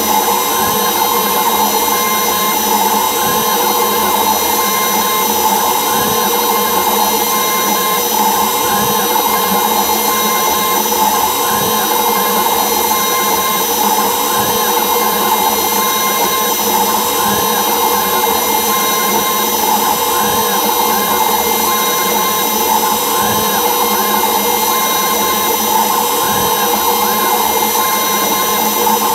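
CNC router spindle spinning at a steady high speed with a fine tapered bit cutting a relief carving, giving a constant high whine and cutting hiss. Short rising-and-falling whines come every second or so as the machine moves back and forth.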